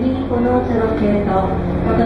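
Voices and background music mixed over a steady low hum of the Himiko water bus's engines.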